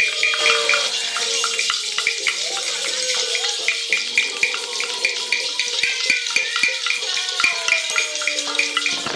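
Free improvised music: quick, irregular clicks and rattles over slow sliding tones and a held note, with a steady hiss.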